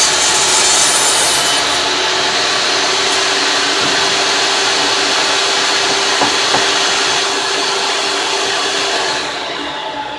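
Electric saw running and cutting through wood, a loud steady whine and rasp, that dies away about nine seconds in.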